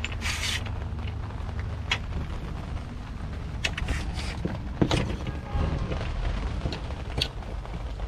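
Scattered clicks, knocks and creaks of an RV's roll-out awning support arm being handled against the vehicle's side, with a short rustle about half a second in and a louder knock near the middle, over a steady low hum.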